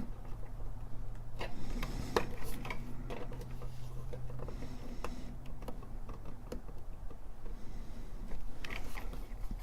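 Light, scattered clicks and scrapes of a bent paper-clip hook working at a TRS-80 Model I keycap, the key clicking on its switch as it is pried at; the keycap is stuck fast on its post. A low steady hum sits under the first part.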